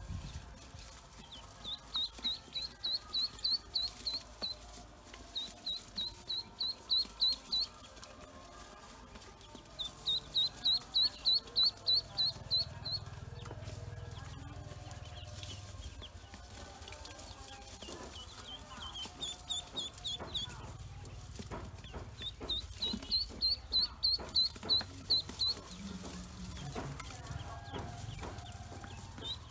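Pekin and black ducklings peeping in quick runs of high chirps, about four a second. The runs come in bursts of a few seconds each, several times over.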